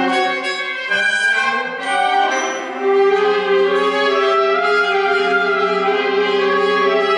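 Concert wind ensemble of woodwinds and brass playing a full-band passage: shifting notes at first, then a louder sustained chord from about three seconds in.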